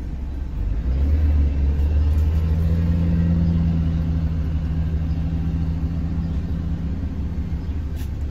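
Low, steady hum of an idling vehicle engine, heard from inside a truck cab with the window open. It swells about a second in and eases off near the end.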